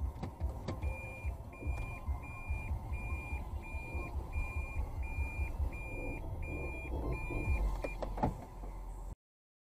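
A car's electronic warning chime beeping evenly, about two high beeps a second, over a low steady rumble; it all cuts off abruptly near the end.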